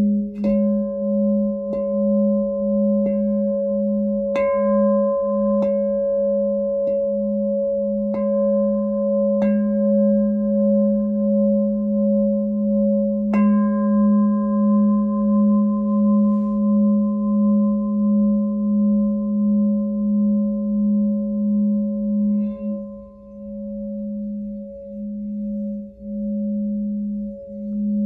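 Platinum Lemurian Seed crystal glass singing bowl sounding a deep sustained tone that swells and fades in slow, even pulses. Through the first half it is tapped lightly about every second and a half, each tap adding a brighter ringing overtone. About 22 seconds in, a brief touch leaves the tone quieter but still pulsing.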